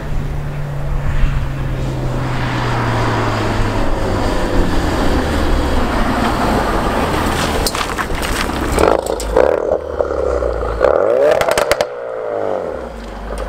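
Modified Mk3 Ford Focus RS's turbocharged 2.3-litre four-cylinder EcoBoost engine running as the car drives by, its engine note falling at first, then revving up and down near the end, with a few sharp cracks.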